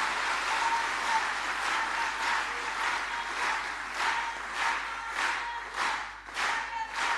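Audience applauding in a large hall, the scattered applause settling about halfway into rhythmic clapping in unison, about two claps a second.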